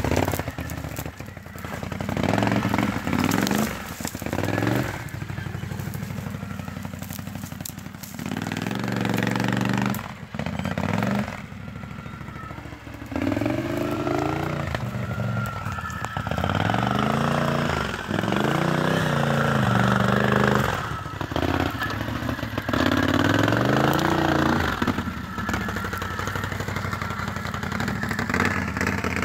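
Can-Am Renegade XXC 1000R quad's V-twin engine revving up and dropping back again and again as it is ridden over rough ground, with brief lulls when the throttle is let off.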